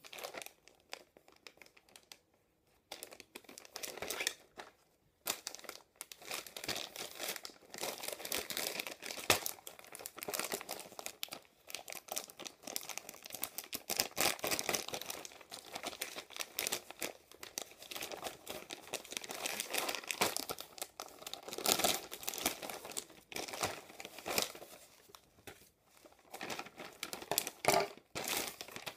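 Plastic poly shipping mailer crinkling and rustling in irregular bursts as it is handled and cut open with scissors.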